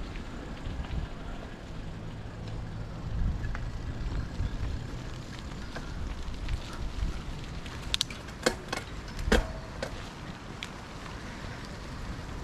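Bicycle being ridden, with a steady low rumble of rolling and wind on the microphone, and a run of sharp clicks and rattles between about eight and ten seconds in.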